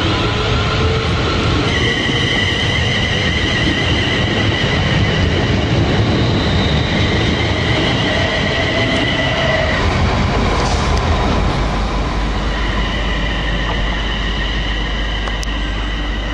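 London Midland Class 350 Desiro electric multiple unit running past the platform: a loud, steady rush of wheels on rail with a high steady whine in two tones that drops out for a couple of seconds about two-thirds of the way through, then returns.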